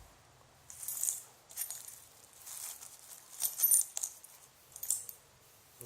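Metal drill bits clinking and jingling against each other as they are handled, in a handful of short, bright clinks a second or so apart.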